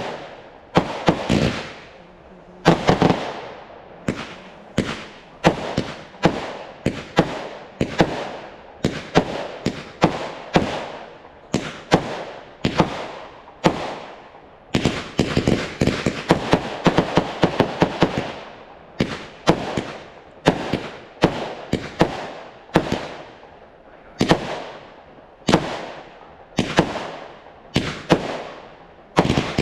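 Fireworks display: a steady series of aerial shell bursts, about one or two bangs a second, each with a fading crackling tail, thickening into rapid crackling volleys about halfway through.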